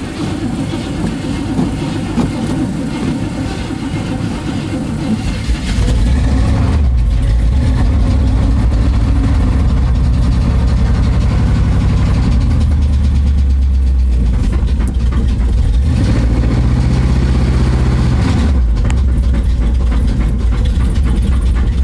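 1982 Chevy engine running with a knocking noise that the owner cannot identify; it gets louder and steadier about six seconds in, and its pitch shifts up and down a few times as the engine speed changes.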